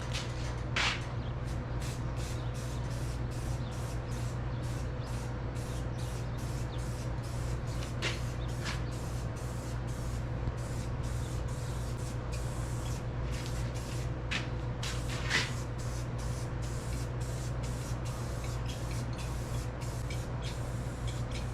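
Spray paint hissing in repeated short passes with brief pauses between them, over a steady low hum.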